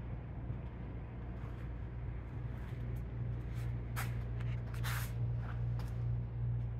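Steady low electrical-sounding hum of workshop background, with two short hissing rustles about four and five seconds in.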